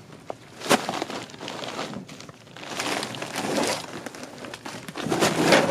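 Plastic bags of frozen coal being handled and stacked: crinkling and rustling of the bags, with a sharp thud about a second in and a louder stretch of rustling near the end.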